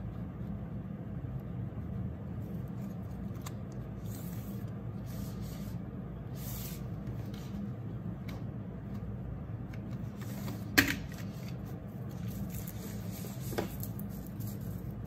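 Paper and a spiral notebook being handled and written on at a table: light paper rustles and pen sounds, with a sharp knock about eleven seconds in and a smaller tap near the end, over a steady low hum.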